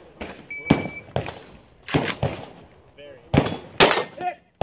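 A shot timer's short high start beep about half a second in, then a string of rifle shots from an AK-pattern rifle, fired irregularly with echo off the range, loudest near the end. A voice calls out briefly between shots.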